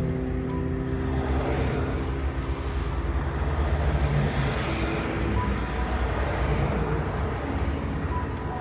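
Highway traffic: a steady low rumble of engines and tyres, with the hiss of vehicles passing swelling up twice.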